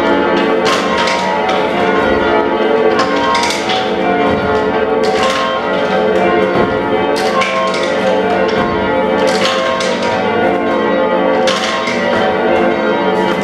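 Change ringing on a ring of five church bells, tenor in F, the oldest cast in the early 1400s: the bells strike one after another in a steady, continuous rhythm, their tones ringing on and overlapping.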